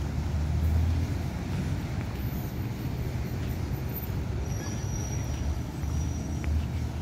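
Outdoor city ambience: a low rumble of distant road traffic and wind buffeting the phone's microphone, swelling and falling. A faint thin high whistle comes in about halfway through.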